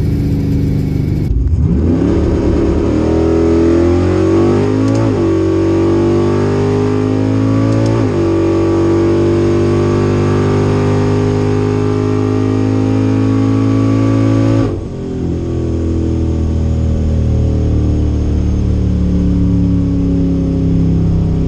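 2011 Ram 1500 R/T's 5.7 HEMI V8 at full throttle on a drag-strip pass, heard from inside the cab: the revs climb, drop twice at upshifts and climb again, then about two-thirds of the way through the throttle is lifted and the engine falls to a lower, steady note.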